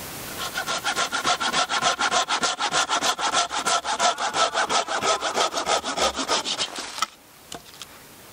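Hand saw cutting through a small log for firewood, quick even back-and-forth strokes of about four a second, which stop abruptly about a second before the end.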